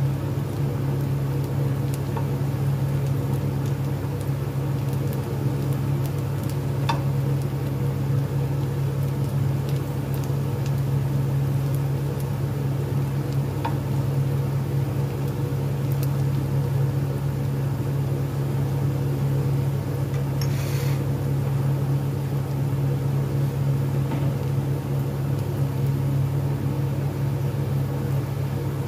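Chopped onion sizzling in oil in a non-stick frying pan while a spatula stirs it, with a few light clicks of the spatula against the pan. A loud, steady low machine hum runs underneath and is the loudest sound.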